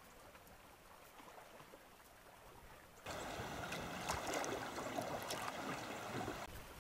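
Faint river water running past the boat, then about three seconds in a sudden louder rush of splashing water as a hooked steelhead rolls and thrashes at the surface, cutting off abruptly near the end.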